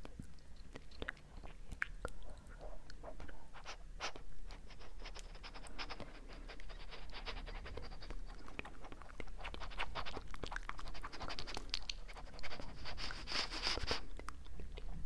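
Close-miked ASMR trigger sounds: a dense run of small clicks and crackles, with a couple of stretches of hissy crinkling, the louder one near the end.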